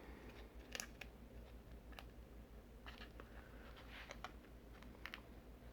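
Near silence with a few faint, scattered clicks and crinkles: a plastic tuna pouch being handled as its vent is torn open.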